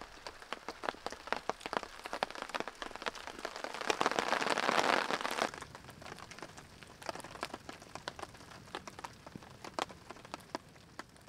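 Campfire of stacked logs crackling and popping, with a louder rushing hiss swelling for about two seconds midway; the crackles thin out toward the end.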